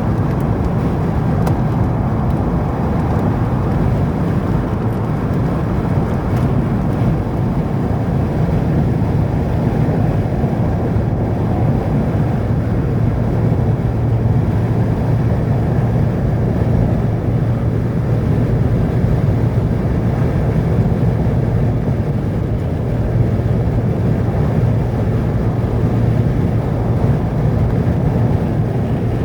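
Steady low rumble of a car driving along a road, engine and tyre noise, with a constant low hum and no changes in pace.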